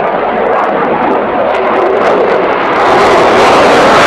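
Loud jet noise from a Eurofighter Typhoon's twin EJ200 turbofans as the fighter flies a low display pass. The sound grows louder and brighter about three seconds in as the jet comes close.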